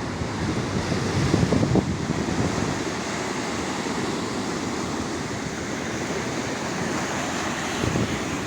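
Sea waves washing onto the shore, mixed with wind buffeting the microphone in uneven gusts.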